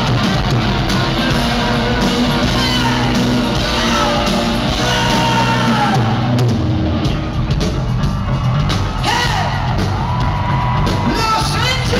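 Live rock band playing loudly, heard from the audience on a low-quality recording: guitars, bass and drums with a male singer, whose long held notes come in over the last few seconds.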